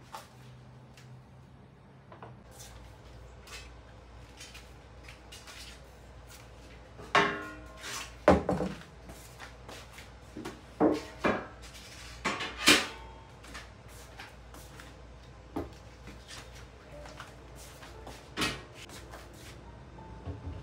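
Dishes and kitchen items being handled and set down during cleaning: a run of sharp knocks and clatters through the middle, some ringing like crockery or metal, then a couple of single knocks near the end.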